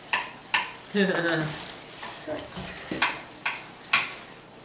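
A knife chopping green peppers on a plastic cutting board: a string of short, irregular knocks, roughly two a second, over a faint hiss.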